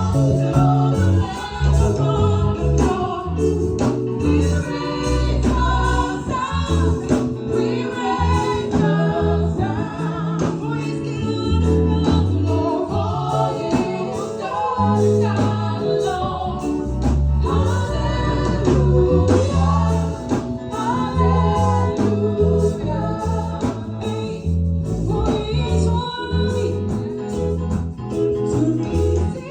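Live gospel worship music: a choir and lead singers singing over a band with bass and drums.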